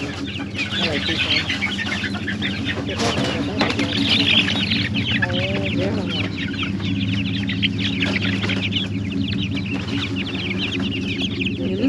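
Many chickens calling at once in a dense, continuous chorus of short, high chirps and clucks, over a steady low hum.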